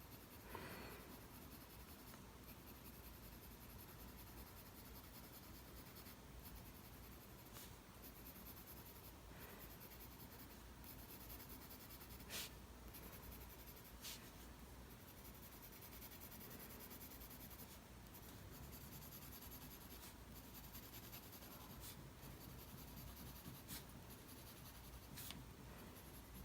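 Faint scratching of a mechanical pencil's graphite on paper, drawn in light vertical strokes, with an occasional soft tick.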